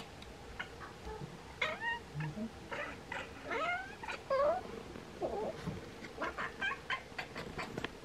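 Bengal cat chattering and chirping at birds it is watching: a string of short chirps and clipped meows that rise and fall in pitch, with quick clicking chatter in the second half.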